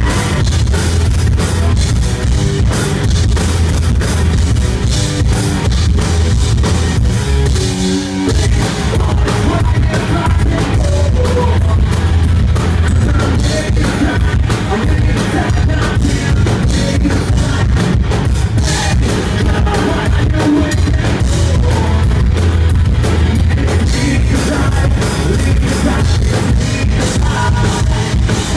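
Live rock band playing loud: electric guitars and a drum kit, heard from the audience, with a momentary break in the bass about eight seconds in.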